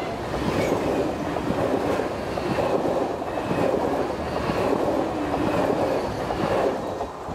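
A Pendolino high-speed electric train passing close by at speed: a steady loud rush of wheels on rail and air. It drops away near the end as the last car goes by.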